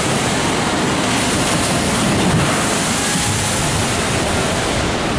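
Steady rushing of churning whitewater in a theme-park river-rapids ride channel.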